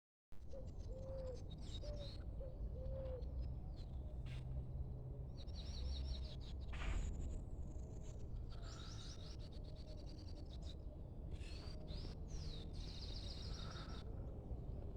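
Several birds singing in woodland: rapid high trills repeated every second or two, with short low calls in the first few seconds, over a steady low background rumble.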